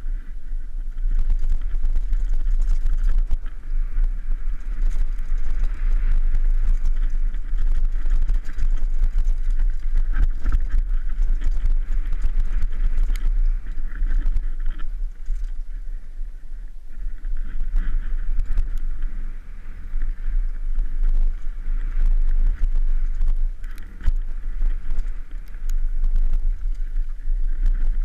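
A mountain bike riding fast down a loose, rocky dirt trail: wind rumbles on the microphone of a helmet-mounted camera, while the bike clatters with many short knocks and rattles over the bumps.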